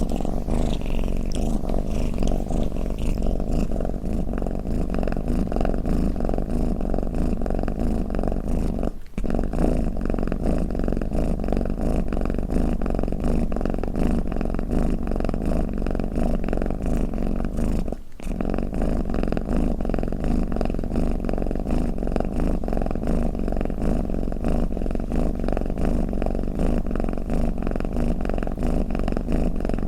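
Domestic cat purring continuously, a steady low rumble that breaks off for an instant twice.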